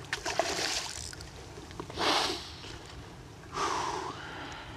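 A person's heavy, snort-like exhales, three of them, the middle one loudest, from the strain of fighting a hard-running redfish.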